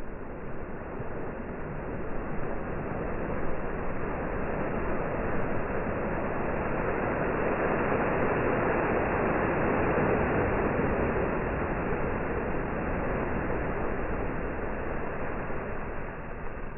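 Ocean surf surging into a rock chasm and bursting up as spray, a rushing wash of water that swells to its loudest about halfway through and then eases off.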